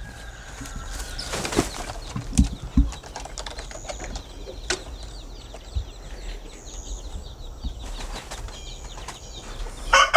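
Chickens moving about, with scattered wing flaps, scratching and small knocks; a rooster begins to crow at the very end.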